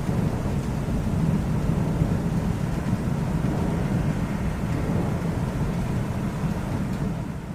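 Low, steady rolling rumble of distant thunder, fading away near the end.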